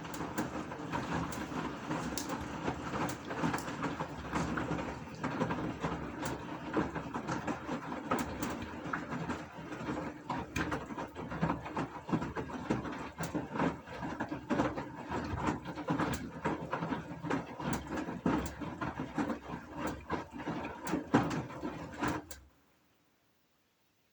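Gorenje washing machine running, a steady mechanical churn with frequent clicks and knocks over it, stopping abruptly about 22 seconds in.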